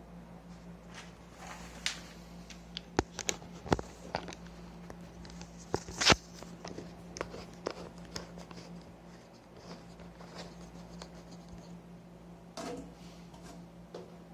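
Scattered sharp clicks and knocks of handling, the loudest about six seconds in, over a steady low hum.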